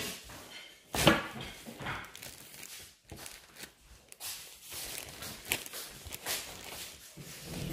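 Handling noise: rustling and knocks of an item being moved and put away close to the microphone, with a sharp knock about a second in.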